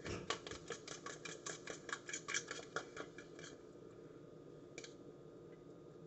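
Eggs being beaten by hand in a bowl: the utensil clicks rapidly against the bowl, about six strokes a second, and stops about three and a half seconds in. One more light tap near five seconds.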